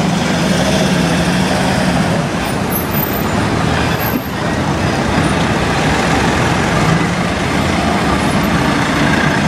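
Diesel engine of a city bus running steadily at low speed, a heavy low hum over the wash of street traffic.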